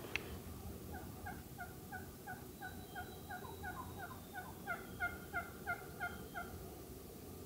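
Merriam's wild turkey hens yelping from the roost: a long, even series of short yelps about three a second, with a second hen's series overlapping, after one short sharp call right at the start.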